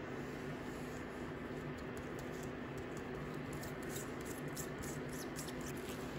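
Gloved hand rubbing salt into wasabi leaves in a stainless mesh strainer: soft, scratchy rustling and crackling of leaves against the mesh, thickest from about two seconds in until shortly before the end, over a steady low hum.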